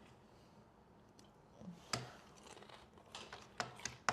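Quiet, scattered crunchy clicks and crinkles, starting about two seconds in.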